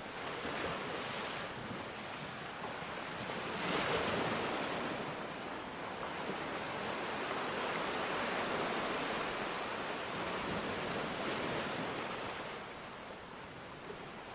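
Sea waves washing onto the shore over a steady hiss, swelling loudest about four seconds in and again twice later before easing off near the end.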